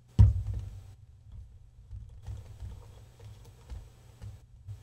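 Test probe clips and a resistor being handled and clipped together on the bench: one sharp knock just after the start, then scattered light clicks over a low handling rumble.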